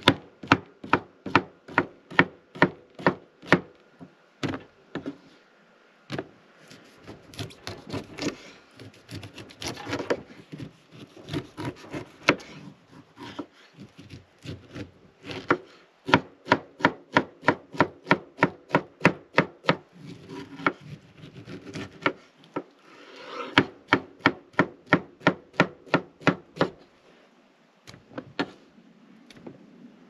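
Kitchen knife chopping pineapple on a wooden cutting board: quick runs of sharp taps as the blade strikes the board, about three to four a second, broken by short pauses.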